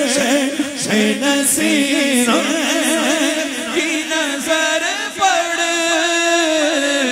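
A group of voices singing the refrain of a naat together, unaccompanied, in long wavering held notes.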